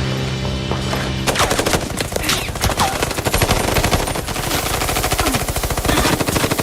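A held musical drone, then about a second in a long spell of rapid automatic gunfire, many shots a second, from a film action soundtrack.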